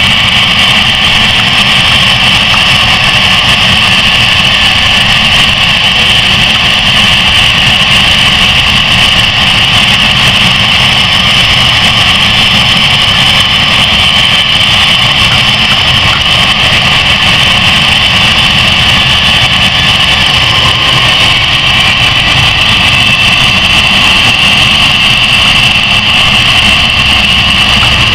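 Cessna Citation CJ1's twin turbofan engines running at low taxi power: a loud, steady high-pitched whine over a low rumble.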